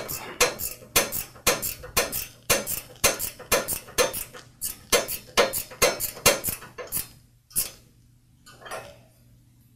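Steel wrenches clicking and clinking on a shear pin's lock nut as it is tightened onto a two-stage snowblower auger, about three sharp metallic clicks a second. They stop a little past three-quarters of the way through.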